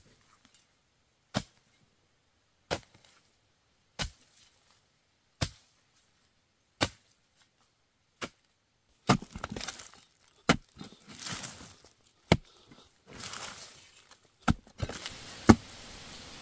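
Wooden digging pole striking hard earth in sharp single blows about once every second and a half, then faster and irregular blows with scraping and loose soil shifting between them in the second half.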